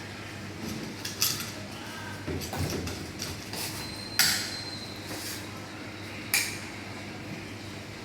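Steady low machinery hum with a few sharp knocks and clicks over it, the loudest about four seconds in, and a short rattle around two and a half seconds.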